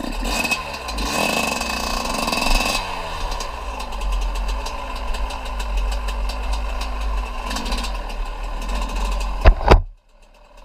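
Small off-road engine, a dirt bike or ATV, running with the revs rising and falling repeatedly. Near the end come two sharp, loud knocks, and then the sound drops out almost completely.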